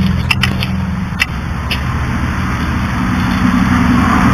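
Small compressed-air-engine cart: a steady low mechanical hum, a few sharp clicks in the first two seconds, and a hiss that builds from about halfway through as he works at the cart.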